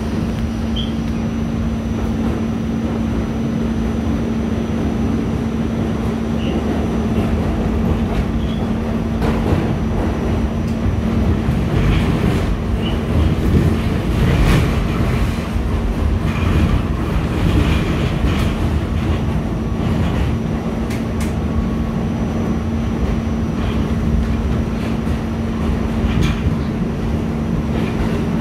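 R46 subway car riding on the Q line, heard from inside the car: steady running noise with a constant low hum, and scattered clicks of the wheels over rail joints, a few louder ones about halfway through.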